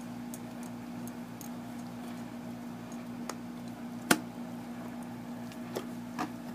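Scattered small clicks and ticks as a dog chews and tugs at a stuffed plush toy, one sharper click about four seconds in, over a steady low hum.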